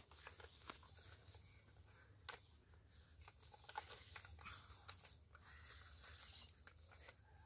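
Near silence: a faint low steady hum with scattered faint clicks and ticks.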